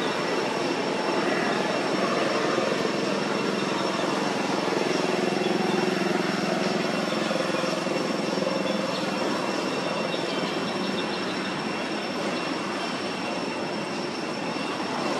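Steady outdoor background noise: a continuous rushing hum with thin, steady high-pitched tones running through it.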